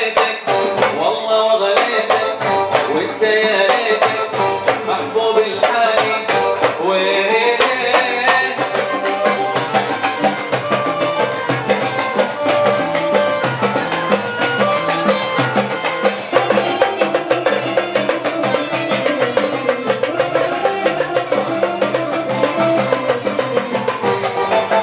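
Live Hadrami-style zapin music: a voice and an oud over hand drums and tambourine. From about eight seconds in, a dense rhythm of hand-played goblet drums and frame drum takes over.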